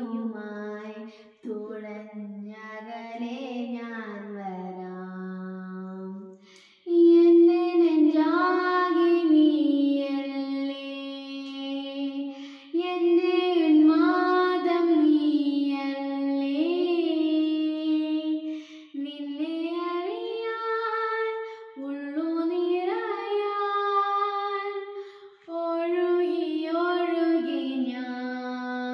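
A girl singing a slow song into a handheld karaoke microphone, one voice holding long notes that slide in pitch, in phrases with short breaths between. Her singing gets clearly louder about seven seconds in.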